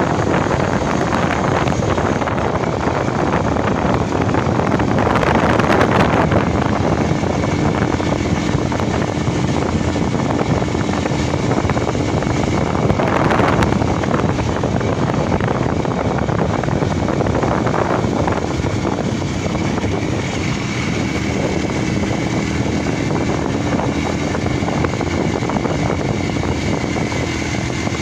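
Heavy wind rushing over the microphone of a moving vehicle, with the vehicle's engine running steadily underneath.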